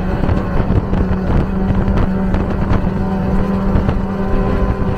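2003 Mercury 250 EFI two-stroke V6 outboard running flat out at a steady pitch, over the rush of wind and water from the wake.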